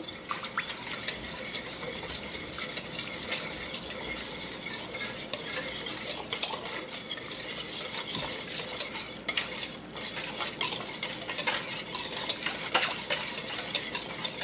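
Wire whisk beating a thin sauce in a stainless steel mixing bowl: a fast, continuous scraping and clinking of the metal wires against the bowl.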